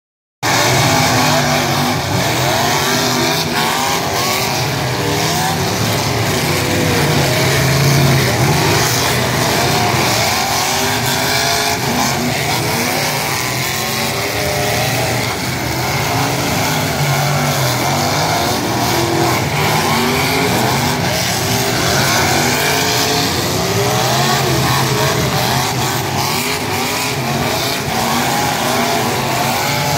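Several figure-8 stock-car engines racing together, many engines overlapping and revving up and down continuously.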